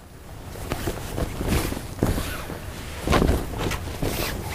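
Clear plastic packaging crinkling and cloth rustling as a folded marina-fabric suit is pulled from its bag and shaken open, with several louder swishes along the way.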